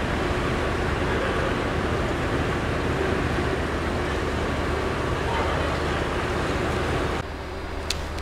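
Cruise ship's engine running steadily as it docks, a low hum under a broad rushing noise heard from on deck. About seven seconds in it drops suddenly to a quieter hum with a couple of faint clicks.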